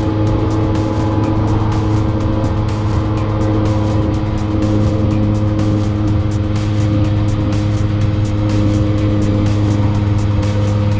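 Bored-up Honda Gyro X scooter engine running steadily, with a fast, even ticking over its hum: the abnormal noise that the owner is trying to trace.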